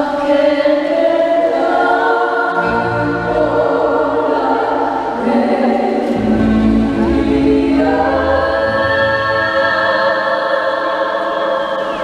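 A choir singing slow, long-held chords over low sustained bass notes.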